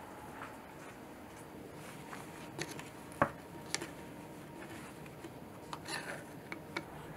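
A scattering of light clicks and taps from small objects being handled, the sharpest about three seconds in and several more near the end, over a faint steady room hum.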